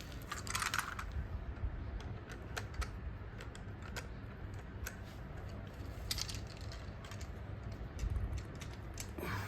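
Irregular light plastic clicks and taps of toy train track pieces and the toy train being handled and fitted together, over a steady low hum.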